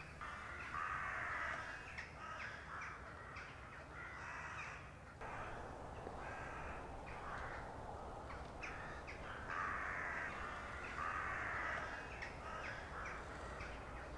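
Crows cawing repeatedly as they come in to roost, several birds calling in overlapping bouts, over a steady low rumble.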